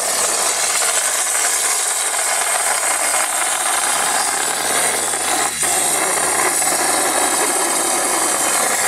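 Helium gas rushing from a cylinder valve into a weather balloon as it inflates: a loud, steady hiss.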